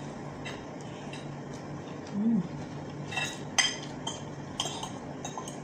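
Metal fork and spoon clinking and scraping against a pan and dishes while eating, with several sharp clinks in the second half.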